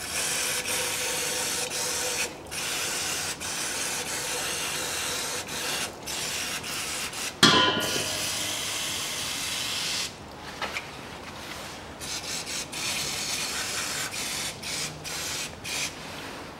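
Aerosol spray can with a straw nozzle hissing in long bursts as cleaner is sprayed to wash oil off the engine's underside, then in shorter spurts near the end. A brief, louder sound cuts in about seven and a half seconds in.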